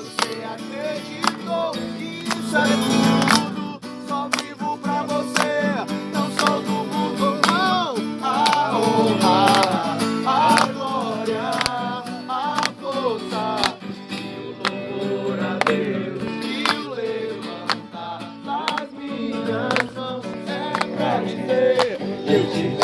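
Acoustic guitar strummed, playing a slow praise song, with a man's voice singing a wordless melody in places.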